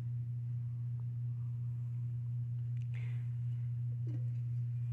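Steady low hum, the loudest thing throughout, with a faint brief rustle about three seconds in.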